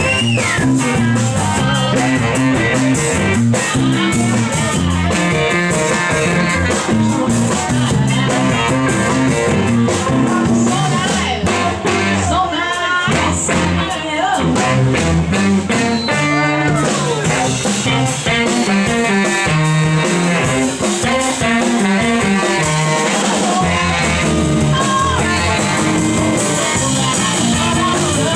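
A live rock-and-roll band playing a song: electric guitar over bass and drums, with singing.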